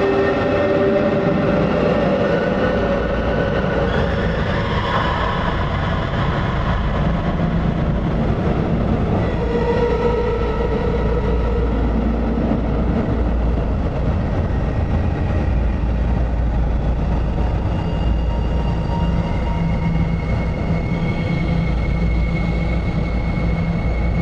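Soma Labs Lyra-8 analog drone synthesizer playing a dense, noisy drone: held tones that fade in and out at different pitches over a steady deep rumble.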